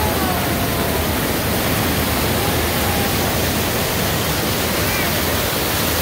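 Small waterfall pouring steadily over boulders, a constant rushing splash of falling water.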